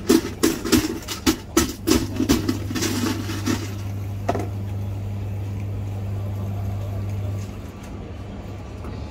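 Ice cubes rattling and knocking as they are shaken and twisted out of a plastic ice-cube tray, a quick run of clatters that stops about three and a half seconds in. A steady low hum runs underneath and cuts off suddenly near the end.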